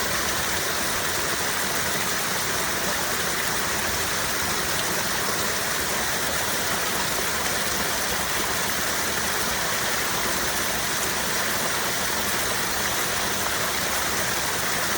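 Mountain stream water rushing and splashing over rocks in a steady, unbroken hiss.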